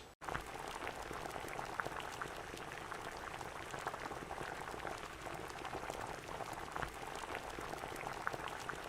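Sausage and vegetables sizzling in an oiled frying pan: a steady hiss with dense, irregular fine crackling.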